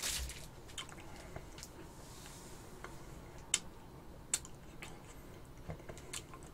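Metal spoon clinking against a glass bowl while scooping ice cream: scattered sharp clinks, the loudest two a little past the middle.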